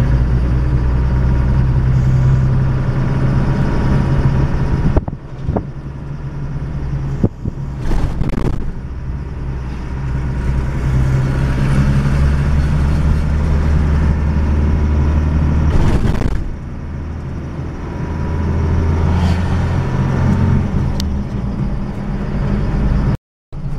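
Vehicle engine and road noise heard from inside the cabin: a steady low drone that rises and falls with the driving, with a few short knocks and rattles. The sound cuts out briefly near the end.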